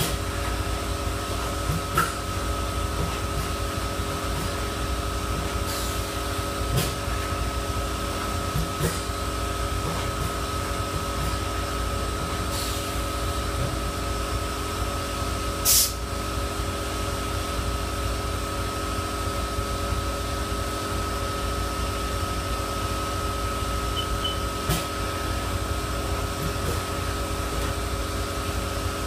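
Steady machine hum with a thin, high whine, broken by a few short clicks and knocks, one louder knock about halfway through.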